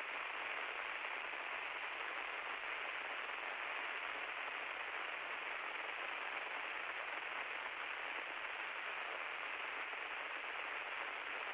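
Steady static hiss on the intercom audio feed of a Cessna 152, with no voices on the line; it holds an even level throughout.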